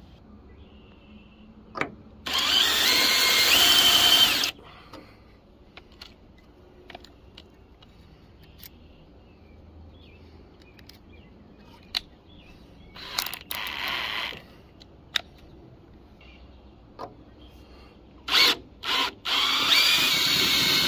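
Cordless drill running a screw-extractor bit in several bursts: a long run about two seconds in with a rising whine, a shorter, quieter run midway, then two quick bursts and a steady run in reverse near the end as the extractor grips the stripped screw and backs it out. Small clicks and taps come between the runs.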